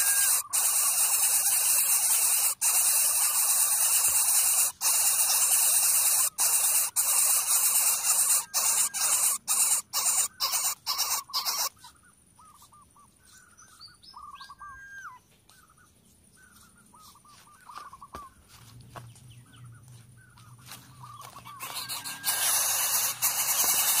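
Greater coucal nestlings hissing loudly and steadily. The hiss breaks off briefly, more and more often, then stops about halfway. About ten quieter seconds of faint high chirps and squeaks follow, and the loud hiss starts again near the end.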